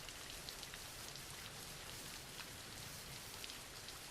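Steady, soft rain falling, an even hiss with scattered faint drop ticks.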